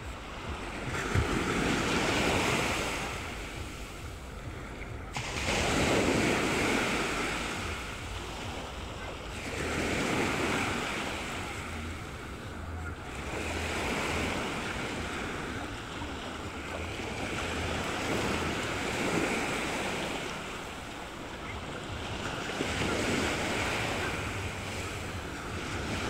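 Small waves breaking and washing up a sandy beach, surging and falling back about every four seconds.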